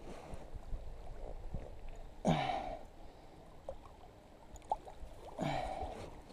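Water lapping and sloshing around an inflatable kayak while a hooked wels catfish is held at the surface alongside. Two short, breathy grunts of effort come about two and five seconds in.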